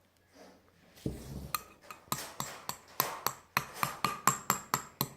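A spoon stirring in a bowl, clinking against its side in a quick regular run of taps, about four a second, starting a second or so in.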